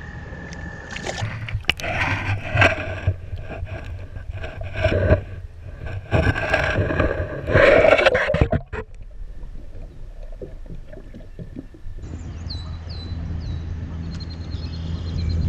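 Water splashing and sloshing against a kayak in a run of irregular splashes and knocks, stopping about eight or nine seconds in.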